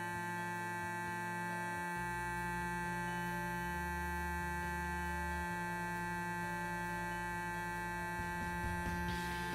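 Clarisonic Mia 2 sonic facial cleansing brush running: a steady electric buzz with a high whine above it.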